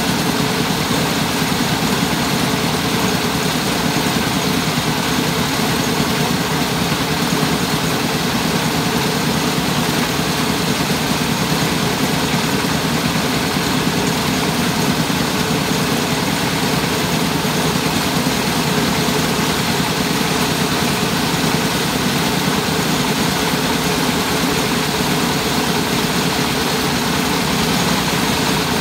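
Mobile rice-milling machine (selep) running steadily, its engine and hulling machinery making a constant, unchanging drone.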